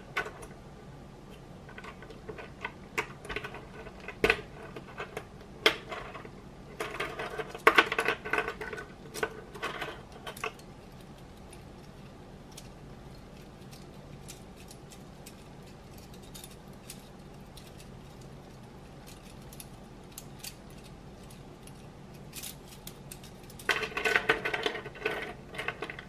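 LEGO Technic plastic connector pieces clicking and clattering against each other as they are handled and fitted together. Scattered sharp clicks, with two busier stretches of rattling, about a third of the way in and near the end.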